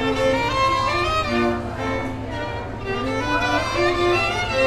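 Classical string music with a violin carrying the melody over lower strings, the notes stepping from pitch to pitch.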